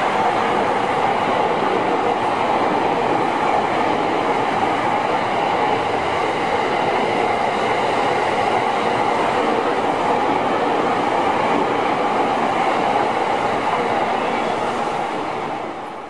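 Electric commuter trains passing close by, one after another, with a steady loud rumble of wheels on the rails. The noise falls away near the end as the last car clears.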